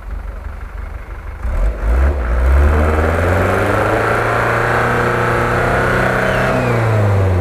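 Off-road SUV engine revving up about a second and a half in and held at high revs as the 4x4 claws up a snowy slope with its wheels spinning, then easing off near the end.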